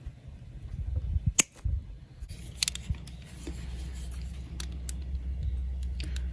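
Wire cutters snipping a battery lead wire, with the sharpest snip about a second and a half in, then a utility knife blade scraping and clicking as it strips insulation from the wire end. A low rumble runs underneath.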